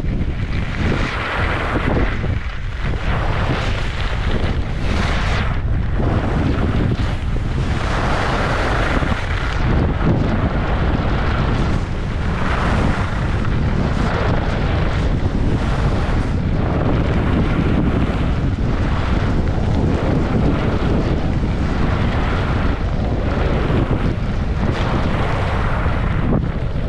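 Wind buffeting the microphone of a camera carried by a skier on a fast downhill run, a constant heavy rumble, with the hiss of skis on snow swelling and fading every second or two as the turns come.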